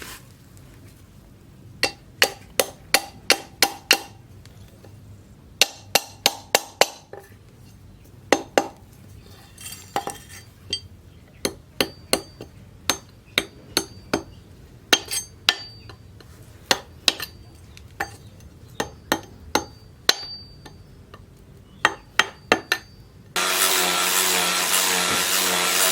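Hammer striking steel in runs of quick blows, about three to four a second, some leaving a short bright ring. Near the end a power tool starts up suddenly and runs loudly with a steady hum.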